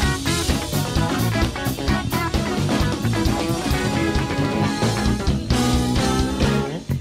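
Live funk band playing an instrumental passage: electric guitar, bass guitar and drum kit.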